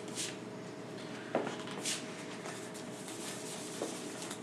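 A few short scratchy strokes of a marker on a whiteboard and a couple of soft knocks, over a steady room hum.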